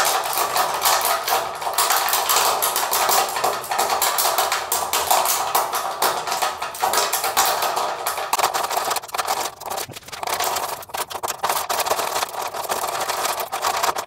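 Metal lock pick scraping and raking inside a door lock, a continuous rapid scratching packed with small clicks.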